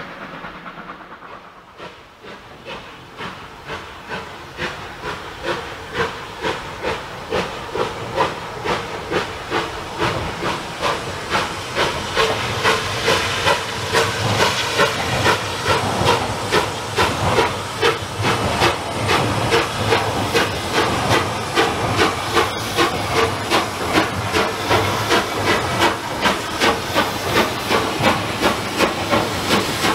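Steam locomotive working hard, its exhaust chuffs growing louder and quicker as it approaches, from about one beat a second to about two a second.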